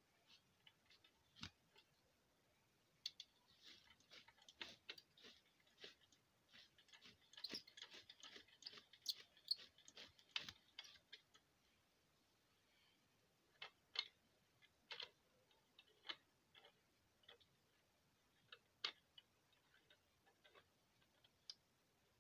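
Faint scattered clicks and light knocks, a busy run of them for several seconds in the first half, then single clicks a second or more apart.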